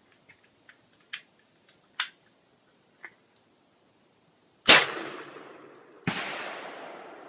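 Faint clicks of the M6 Scout's action being handled, then a .410 shotgun shot from a 3-inch No. 6 shot shell about four and a half seconds in, ringing out as it fades. A second loud bang follows about a second and a half later and fades slowly.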